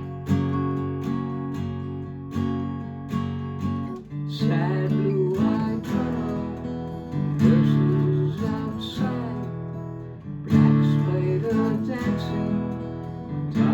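Yamaha acoustic guitar playing, picked and strummed chords with a steady pulse; the chord pattern shifts about four seconds in.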